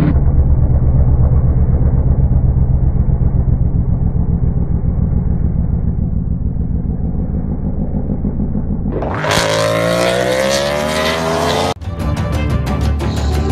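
Muffled, rumbling sound of racing motorcycle engines, then about nine seconds in a clearer motorcycle engine with its pitch changing as it revs through the corner. Near the end, background music with a steady beat cuts in.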